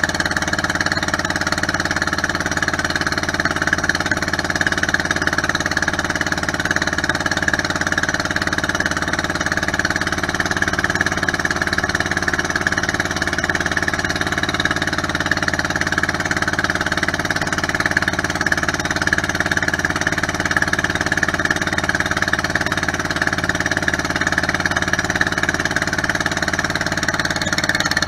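Outrigger boat (bangka) engine running steadily, its hum holding the same pitch and loudness throughout.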